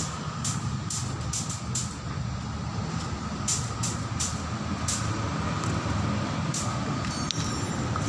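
Coffee press machine running: a steady motor hum with a constant higher whine, and a string of short sharp clicks, most of them in the first five seconds.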